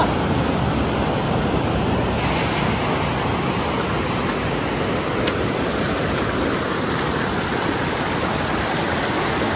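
Whitewater rapids of a rocky mountain river rushing steadily.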